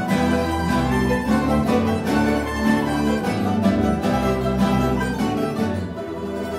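A mandolin orchestra of mandolins, mandolas, mandoloncellos, classical guitars and double bass playing a melodic passage together. It eases slightly in loudness near the end.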